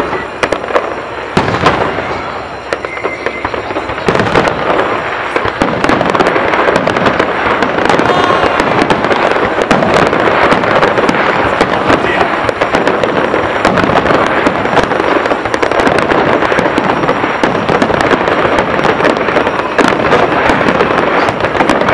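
Aerial fireworks display: shells bursting in rapid succession, many bangs and crackles, growing into a dense, continuous barrage about four seconds in.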